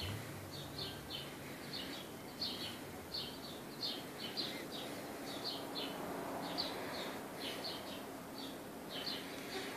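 Small birds chirping: short high chirps, often in quick pairs or triplets, repeating a couple of times a second, over a faint steady background hum.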